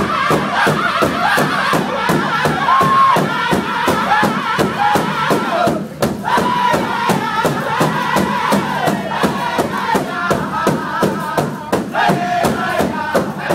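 Powwow drum group singing in high, wavering voices over a big drum struck together by several drummers in a fast, steady beat, with a brief break in the voices about six seconds in.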